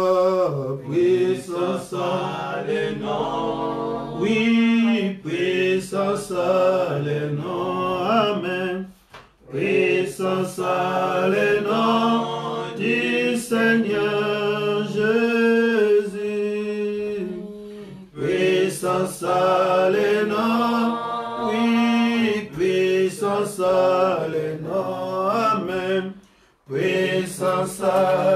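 Voices singing a hymn of praise, with long held notes and brief pauses between phrases, about 9 seconds in and again near the end.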